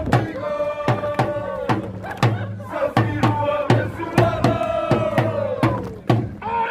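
Football supporters' group chanting in unison over a drum beating steadily, several strokes a second.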